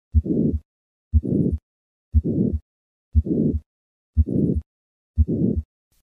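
Heart sounds with the harsh systolic murmur of hypertrophic cardiomyopathy: six beats about a second apart, each a sharp first heart sound followed straight away by a harsh murmur lasting about half the beat, with a short silence before the next.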